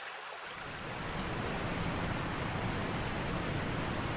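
Creek water rushing steadily, an even hiss with a low rumble underneath, swelling up about half a second in and then holding.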